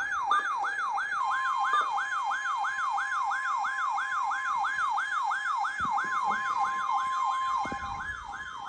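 Electronic siren-style alert tone, yelping rapidly up and down about three times a second over a steady tone, sounding as a new severe weather alert comes in.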